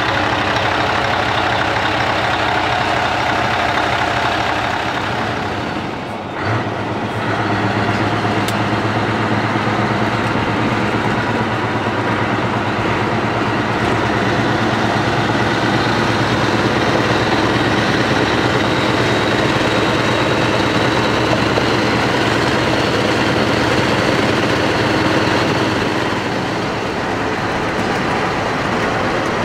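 Scania R500 V8 diesel truck engine running steadily, idling at first. About six seconds in the sound changes to a steady low drone heard from inside the cab as the truck drives along.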